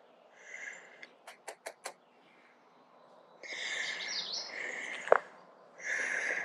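Outdoor birds chirping in short bursts of calls, with a quick run of four sharp clicks about a second and a half in.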